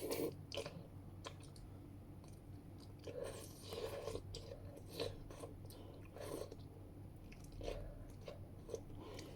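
A person chewing a mouthful of spicy mala suan la fen noodles: faint, irregular wet mouth clicks and smacks.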